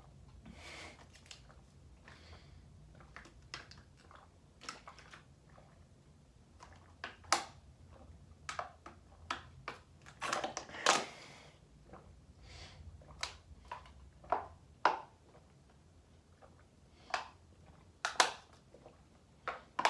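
Plastic water bottle crackling and popping irregularly as its walls buckle while it is chugged.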